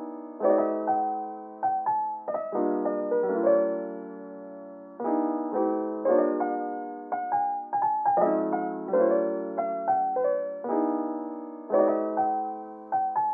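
Background music: solo piano, chords and melody notes struck one after another and left to fade.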